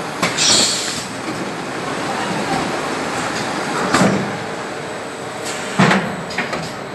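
Automatic pouch powder filling and packing machine running: steady mechanical clatter, with a burst of compressed-air hiss in the first second and sharp clunks about four seconds in and again near six seconds as the pneumatic gripper moves and sets down the pouch.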